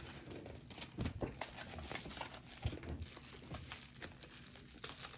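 Plastic bubble wrap crinkling as it is handled and picked open by hand, in irregular small crackles.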